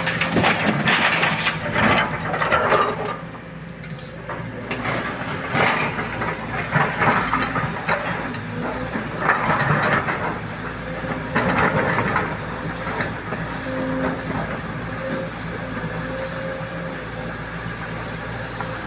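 Sany SY225C crawler excavator's diesel engine and hydraulics running under load. Over it come several bursts of rock grinding and clattering as the machine digs and loads stone, most of them in the first dozen seconds. After that the engine runs more steadily.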